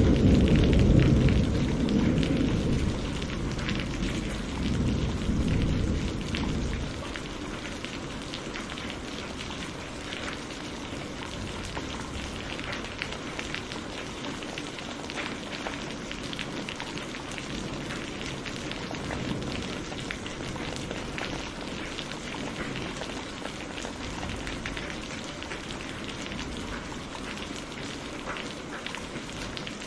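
Rolling thunder rumbling and fading away over the first few seconds, then steady heavy rain pattering on surfaces.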